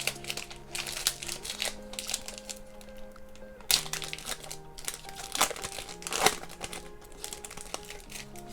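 Plastic foil wrapper of a football trading-card pack crinkling as it is handled and opened, with sharper crackles a few times, over soft background music.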